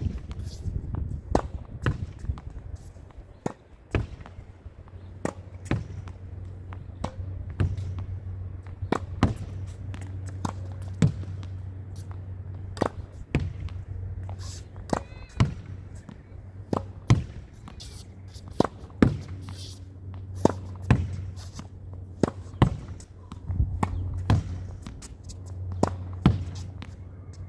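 A tennis ball rallied against a practice backboard: a racquet striking a green dot (stage 2, low-compression) ball and the ball smacking the wall and bouncing, in a steady run of sharp hits about one to two a second, often in quick pairs. A low steady hum runs underneath.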